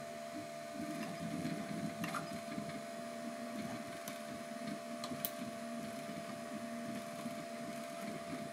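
Bambu Lab A1 Mini 3D printer printing: its motors buzz and whir at a constantly shifting pitch as the print head and bed move, over a steady whine, with a few faint ticks.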